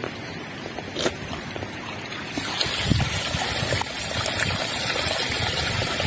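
Irrigation water trickling and running into a dry rice paddy, growing louder a couple of seconds in, with low gusts of wind rumbling on the microphone.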